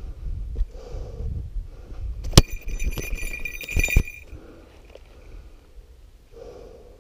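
Heavy, regular breathing of someone walking. About two seconds in there is a sharp knock, then a small metal bell rings steadily for about two seconds, like a falconry bell on the hawk, with two more knocks as it stops.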